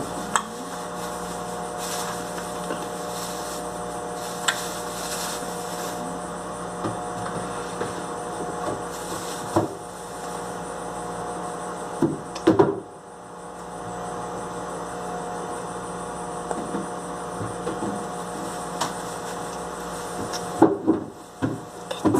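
A steady machine hum made of several fixed tones, with a few sharp knocks and clicks of objects being handled, the clearest about ten and twelve seconds in and near the end.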